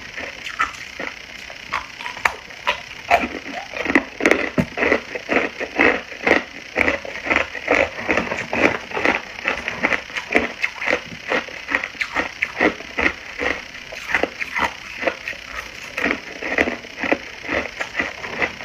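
Hard ice being chewed, close to the microphone: a steady run of sharp, brittle crunches, several a second, as chunks crack and splinter between the teeth.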